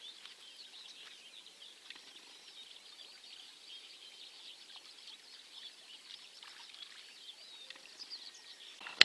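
Songbirds singing: a continuous tangle of quick, high chirps and warbles over faint hiss, with one sharp click at the very end.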